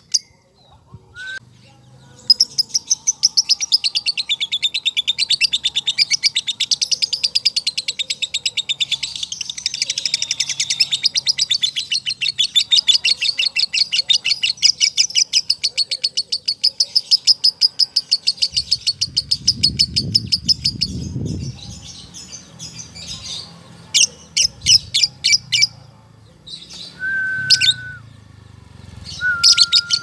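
Fischer's lovebird giving its long 'ngekek' chatter: a fast, even string of high, shrill notes that runs for about fifteen seconds with hardly a break. After a pause come a few short chattering bursts and two brief steady whistled notes near the end, with a low rumble in the background about two-thirds of the way in.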